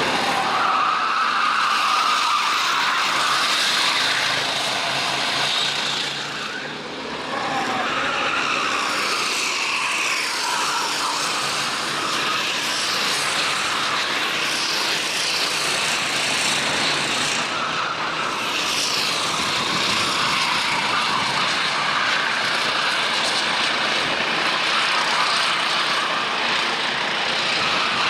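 Several racing kart engines running at speed on a track, their pitch rising and falling as they rev and pass, with a brief lull about a quarter of the way in.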